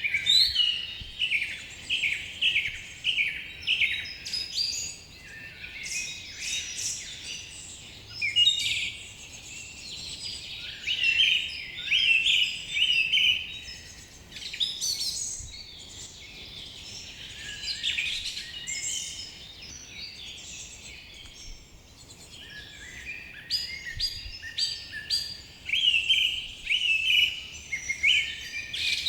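Several songbirds singing and calling in a forest, many short high notes in overlapping phrases, with a quieter lull about two-thirds of the way through.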